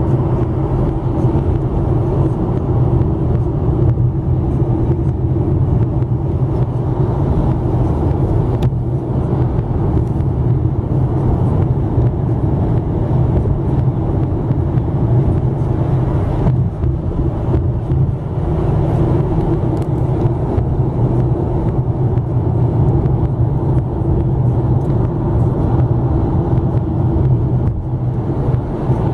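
Steady road and tyre rumble with engine hum heard from inside a car cruising at highway speed.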